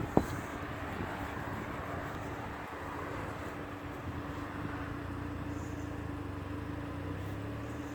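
A vehicle engine running steadily at idle, with a single sharp click just after the start.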